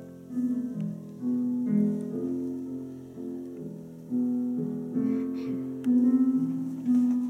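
Slow piano music: notes struck about once a second and left to ring and die away.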